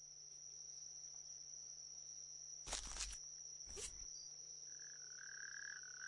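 Faint night ambience with a steady high-pitched chirring and two brief rustles about halfway through. About three-quarters of the way in, a distant male natterjack toad starts its long, even trilling call.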